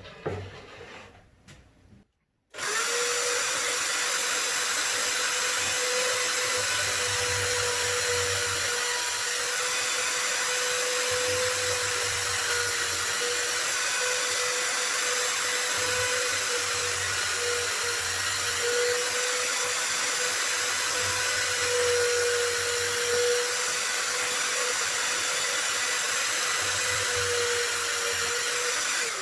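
Electric drill running at a steady, unchanging pitch while boring holes into a wooden plank, starting about two and a half seconds in.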